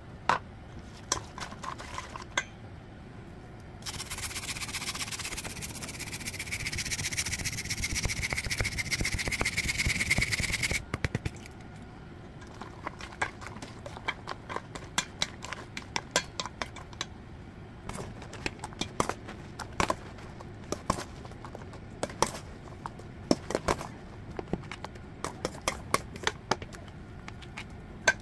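A plastic spatula clicking, knocking and scraping against a stainless steel mixing bowl as a fruit salad in creamy dressing is stirred, in irregular bursts. For about seven seconds in the first half a steady hiss with a faint tone sounds over it.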